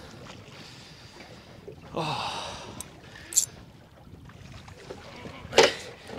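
Water and wind noise around a small tinny as a big snapper is being netted beside it, with a short gasped 'oh' about two seconds in. A brief sharp noise comes about three and a half seconds in, and a louder one near the end.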